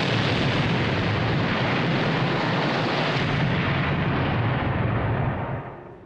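Loud, long rumble of a large explosion, a dense even roar of blast and falling debris that dies away shortly before the end.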